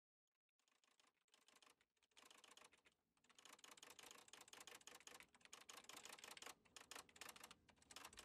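Faint typewriter keys being struck: a few scattered keystrokes about a second in, then fast, continuous typing from about three seconds in.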